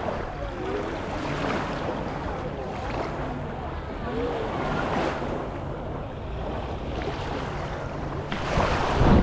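Sea waves washing on the shore, with wind on the microphone and faint voices of people on the beach. The wash grows louder near the end.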